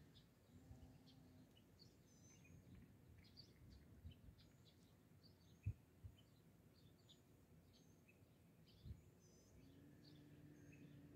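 Faint birds chirping in the background. Two brief knocks, the louder about halfway through.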